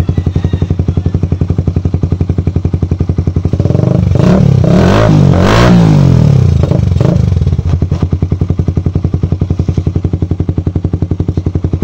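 Suzuki Raider R150's single-cylinder four-stroke engine idling through an Akrapovic 51mm standard-type slip-on exhaust with its silencer insert fitted. About four seconds in, the throttle is blipped several times, the pitch rising and falling, before it settles back to idle.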